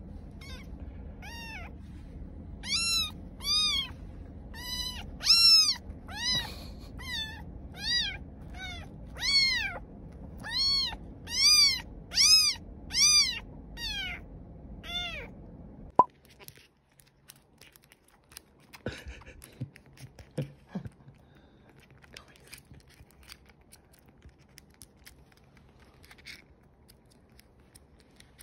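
Tiny longhaired kitten meowing loudly over and over, about sixteen high calls each rising and falling in pitch, over the low rumble of a car's cabin. The calls and rumble stop suddenly about sixteen seconds in, leaving only faint scattered clicks and small noises.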